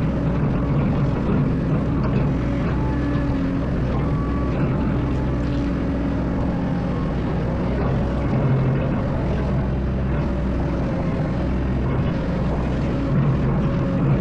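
Excavator's diesel engine running steadily: a low drone with higher tones that come and go above it.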